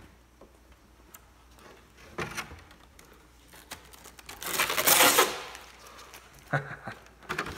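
Plastic RC truck body shell clicking and rattling as it is handled and its front grille piece is worked loose, with a louder burst of rattling about five seconds in.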